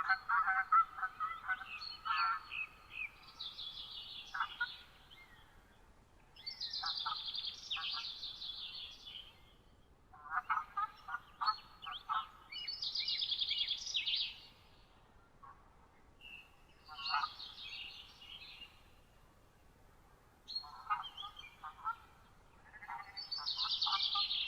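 Songbirds singing: high trilled song phrases recur every five or six seconds, with shorter lower chirps and calls between them.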